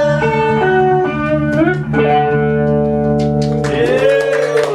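A band's guitars play the closing instrumental bars of a song: a guitar melody over held chords and a sustained bass note. The low notes stop a little over three and a half seconds in, and scattered hand claps begin near the end.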